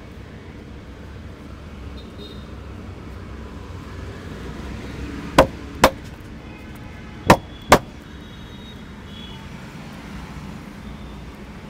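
Sharp hand slaps of an Indian head massage: four loud smacks in two quick pairs, the pairs about two seconds apart, over a steady hum of street traffic.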